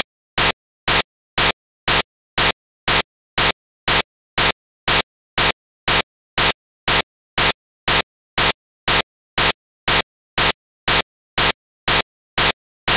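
Short bursts of static-like hiss repeating evenly, about two a second, with silence between each burst.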